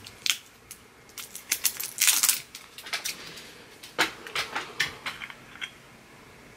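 Tightly sealed cosmetic packaging being worked open by hand: a run of irregular sharp plastic clicks and taps, with a crinkling rustle about two seconds in.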